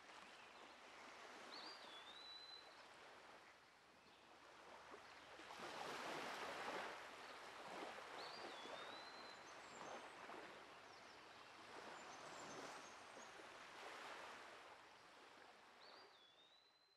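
Faint outdoor ambience: a soft rushing noise that swells and ebbs, with a bird repeating the same short high whistled call three times, about seven seconds apart, fading out near the end.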